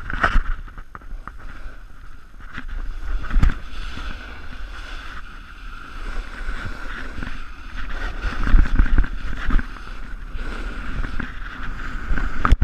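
Snowboard riding down a packed, groomed slope: the board sliding and its edges scraping over the snow, with wind buffeting the microphone. The noise swells and fades irregularly, loudest about two-thirds of the way through.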